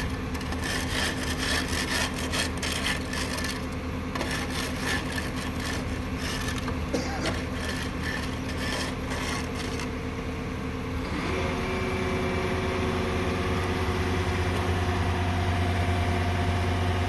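Heavy construction machine's engine running steadily under quick, repeated scraping and rasping for about ten seconds. A little past the middle the scraping stops and the engine speed steps up, holding at a higher, louder run.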